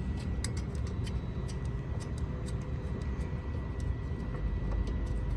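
Light metallic clicks as a VGT actuator and its mounting screws are handled on a diesel turbocharger, a few scattered taps over a steady low rumble with a faint high whine.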